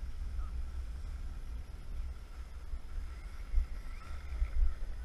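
Wind buffeting a helmet-mounted action camera's microphone, a steady low rumble, over a faint thin whine. A few faint rising chirps come in over the last two seconds.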